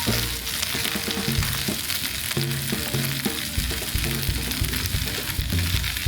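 Food sizzling as it fries, with stirring, over background music with short repeating low notes.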